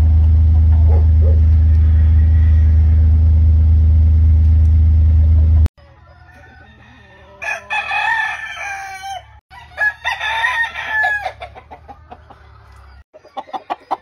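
A loud, steady low hum that cuts off suddenly about six seconds in, followed by a gamecock rooster crowing twice, each crow lasting about a second and a half.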